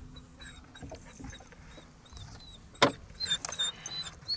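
Handling noises in a bass boat: light knocks and rattles, with one sharp click a little under three seconds in, and faint high chirps repeating in the background.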